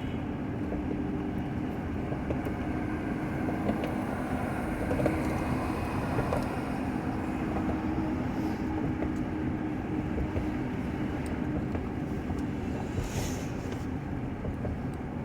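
Steady road and wind noise of a moving car heard from inside the cabin, with a steady low hum.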